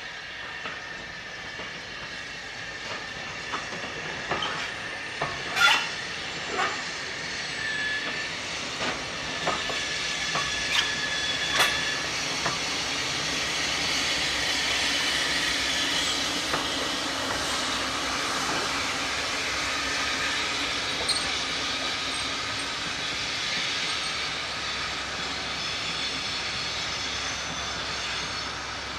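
Great Western steam railmotor No. 93 with its auto-trailer running slowly past. Its wheels click over the rail joints, with a few brief squeals, and the steam engine's exhaust hisses. The sound swells to its loudest about halfway through as the railmotor goes by, then slowly fades.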